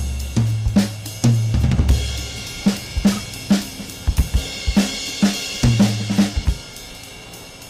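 Background music: a drum-kit beat with deep bass notes, which stops about six and a half seconds in.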